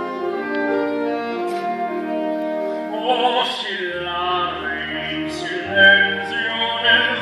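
Slow orchestral musical-theatre accompaniment with bowed strings, joined about three seconds in by operatic singing with a wavering vibrato.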